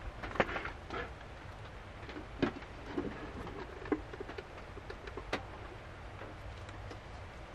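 Scattered raindrops tapping irregularly on a van's roof, a few light ticks a second apart over a faint steady background.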